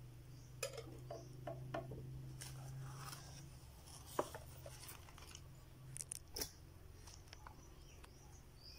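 Faint clicks and taps of hard plastic as an action figure is set into a clear plastic clip-on stand and adjusted by hand, the sharpest taps about four seconds in and again around six seconds, over a faint low steady hum.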